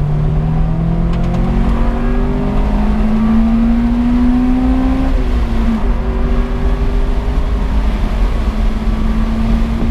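Honda CRX Del Sol VTi's 1.6-litre VTEC four-cylinder engine revving high under hard acceleration, heard from inside the cabin. The engine note climbs steadily for about five seconds, drops abruptly, then holds and rises slowly again.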